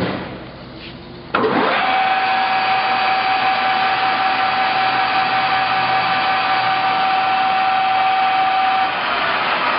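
Acraturn LS-400 engine lathe's 5 hp drive and gearhead starting up about a second in, then running steadily with a high whine. Near the end the whine cuts off and the running sound drops a little.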